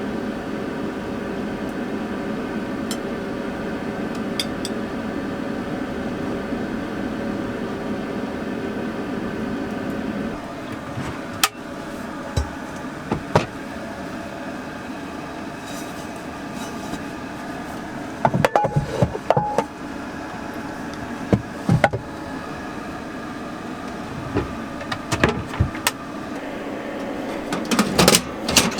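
Van heater fan blowing with a steady hum that drops in level about ten seconds in. Short clicks and knocks come through in the second half.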